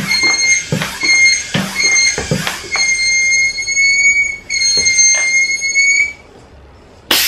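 Floor pump being worked on a plastic bottle, a stroke about every 0.8 seconds for the first few seconds, under a steady, held high-pitched note that breaks briefly and ends about six seconds in. Near the end a short, loud hiss of air.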